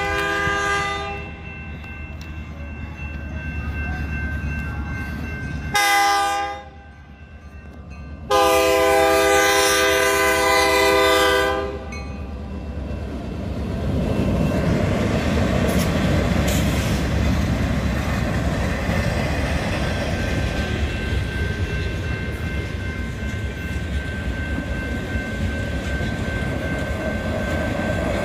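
Lake State Railway GP38-3 diesel locomotive sounding its horn for a grade crossing: a blast that ends about a second in, a short blast around six seconds, then a long blast of about three seconds. The train then rolls over the crossing with a steady rumble of engine and wheels on the rails, with some clickety-clack.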